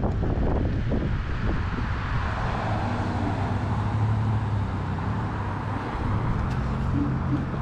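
Road traffic: a steady hum of car engines and tyres passing close by, with some wind on the camera microphone.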